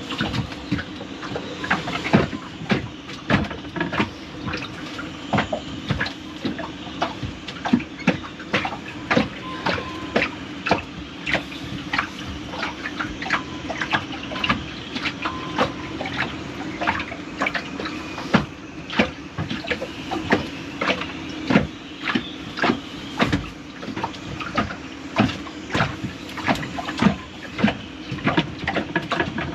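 Irregular light clicks and knocks, several a second, from bilge pump parts being handled and fitted. A steady low hum runs underneath.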